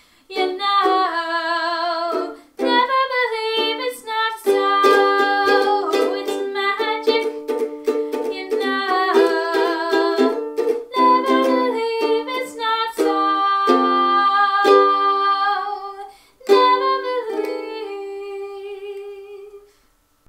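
A woman singing with vibrato to her own strummed ukulele accompaniment, finishing on a long held note that fades away near the end.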